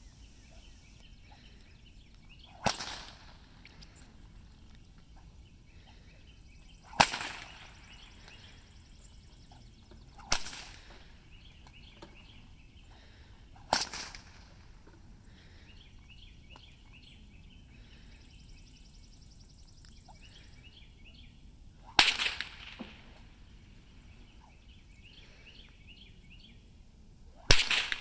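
Six sharp whip cracks at uneven intervals of a few seconds, with a long gap in the middle, each followed by a short echo. Faint chirping carries on between them.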